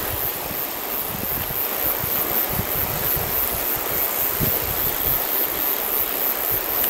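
Steady rushing of wind through long grass and bush, with irregular low buffeting of wind on the microphone.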